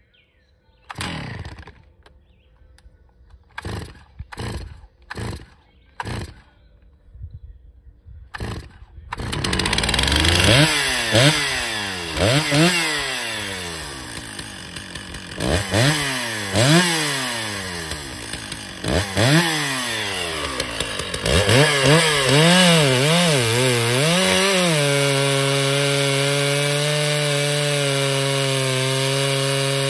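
Stihl MS650 two-stroke chainsaw (about 85 cc) pull-started with several short pulls before it catches about nine seconds in. It is then revved up and down repeatedly. Near the end it is held at steady full throttle, cutting through a large log.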